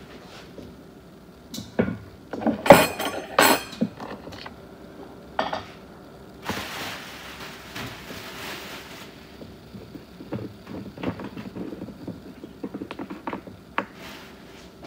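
Kitchen dishes and utensils being handled: clattering and clinks, loudest in a cluster of knocks a couple of seconds in, then a rushing noise for about two and a half seconds and scattered light ticks.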